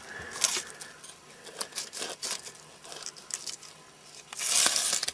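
Pocket-knife blade cutting through the crust of a bread bun baked on birch bark: scattered soft crackles and crunches as the crust breaks and the bark crinkles, with a louder rustle near the end.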